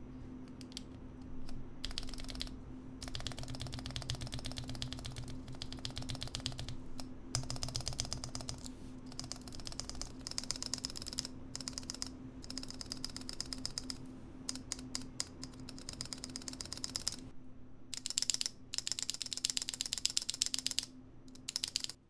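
A 2u Enter key on a mechanical keyboard with brown-stem switches, pressed rapidly over and over in quick runs of clacks with short pauses. Its stabilizer has been freshly re-lubed to tune out rattle.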